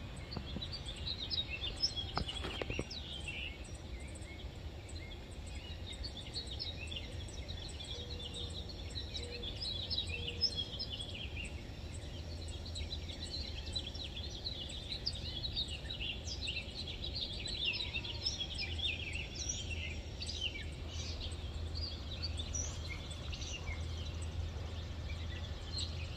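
Outdoor ambience of many birds chirping and calling at once, in short overlapping chirps, over a low steady rumble.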